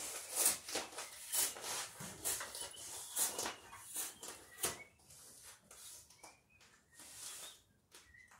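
Stiff sailcloth crackling and rustling in quick, irregular bursts as it is handled and folded along the sail's edge, dying down after about five seconds.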